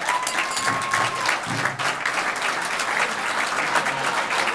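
A room of seated guests applauding, with dense continuous clapping. One high note is held for about a second at the start.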